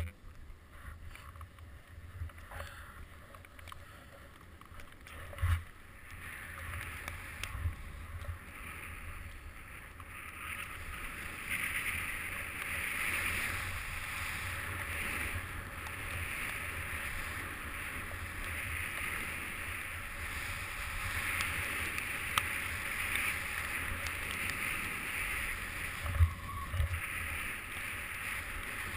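Hiss and scrape of edges sliding over snow on a downhill run, building over the first few seconds and then holding steady, over a low rumble of wind on the microphone. A sharp thump about five seconds in and another near the end.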